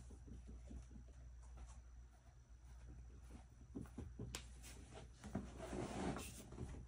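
Quiet room tone with a few faint, scattered clicks and soft rustling, a little busier near the end.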